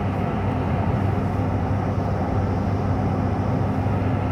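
Car driving, a steady engine and road drone with a low hum.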